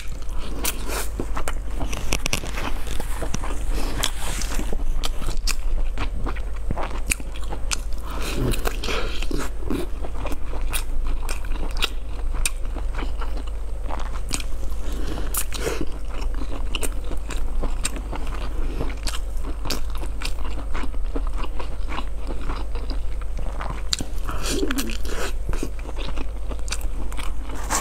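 Close-miked biting and chewing of a crisp fried pastry with a soft filling: many sharp crunches and crackles with mouth sounds, over a steady low hum.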